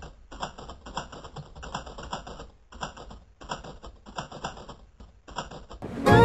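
Typing sound effect: quick runs of key clicks with brief pauses between them, as on-screen text is typed out letter by letter. Music comes in loudly near the end.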